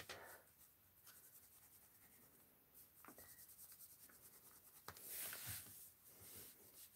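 Pen scratching faintly on sketchbook paper in short drawing strokes, a little louder about five seconds in.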